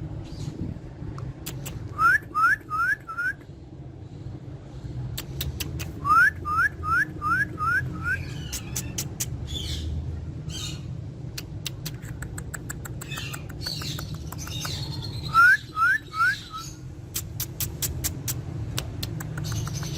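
Ringneck parakeet giving quick runs of short, sharp rising calls: four about two seconds in, six around six seconds, and three near the end, with scattered clicks between them.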